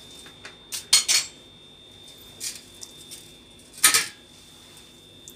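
A stirring utensil knocking against a nonstick pan while mixing thick ragi pudding: two quick clinks about a second in, a faint one midway, and a louder one near the end.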